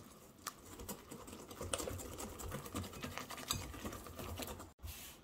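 Wire whisk beating a thick batter in a glass bowl: quick, steady strokes, a soft patter with the wires clicking against the glass, fairly quiet. The sound cuts out for a moment near the end.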